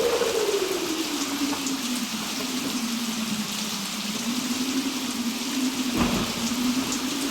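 Stormy-weather mix of steady rain and wind, the wind carrying a wavering tone that sinks over the first few seconds and then slowly rises again. A brief low thud of thunder about six seconds in.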